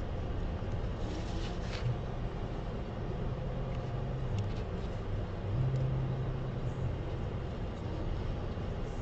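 Steady low rumble with a low hum that shifts in pitch a few times, like a fan or motor running. Faint short hisses come about one and a half and four and a half seconds in.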